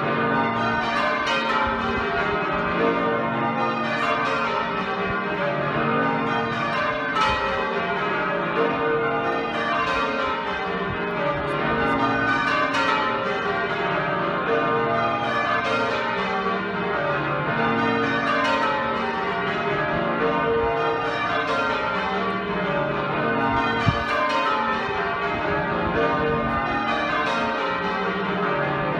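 Change ringing on Exeter Cathedral's twelve bells, whose tenor weighs about 72 cwt. The bells strike one after another without a break, in rows that step down the scale over and over. One sharp knock comes near the end.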